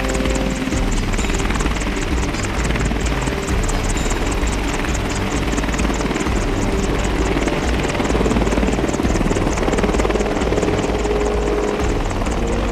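AH-64 Apache attack helicopter running on the ground, its turbine engines and rotor making a loud, steady din with a fast, even rotor beat.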